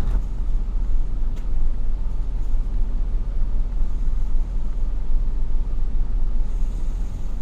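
Wind buffeting the microphone outdoors: a low, uneven rumble that swells and dips without a break.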